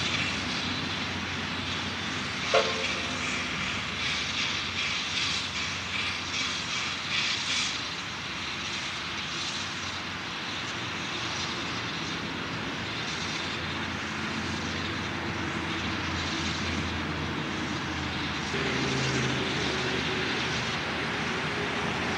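Distant three-foot-gauge steam locomotive working with its train: a steady rumble of exhaust, with the beat of its chuffs standing out for a few seconds near the start. A short sharp chirp comes about two and a half seconds in.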